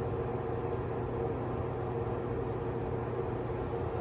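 A steady background hum with a few held low tones, unchanging throughout.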